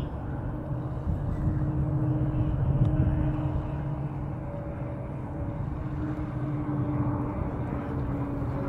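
Steady low rumble of distant engine noise with a faint drone that holds its pitch, swelling a little around three seconds in. Any splashing from the diving ducks is at most faint beneath it.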